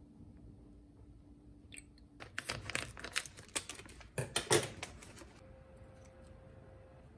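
Quick light clicks and clattering from handling an aluminium moka pot's parts, a coffee scoop and a coffee bag on a metal tray, loudest a little past the middle. A faint steady hum lies under the quieter stretches at the start and end.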